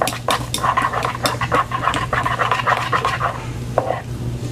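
Spoons stirring sticky glue slime in bowls, a quick run of wet scraping and squelching clicks.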